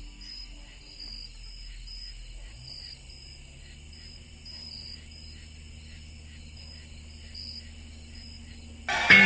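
Quiet insect chirping, short chirps repeating about twice a second over a steady high trill, with a low hum beneath. Loud guitar music cuts in suddenly near the end.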